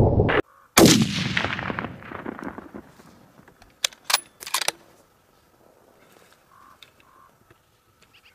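Rifle shot about a second in, its report echoing and dying away over about two seconds. It is followed a few seconds later by a quick cluster of sharp clicks. Just before the shot, a loud rumble cuts off abruptly.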